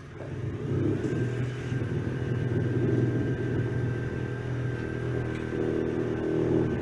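Electric power tool motor running continuously, with a low hum and a thin steady high whine, its loudness swelling and easing slightly.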